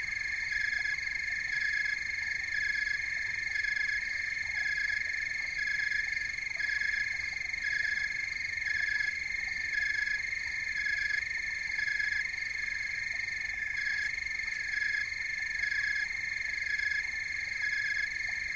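Chorus of small calling animals: a steady, rhythmic layer of high calls pulsing about once a second over continuous ringing tones, unchanging throughout.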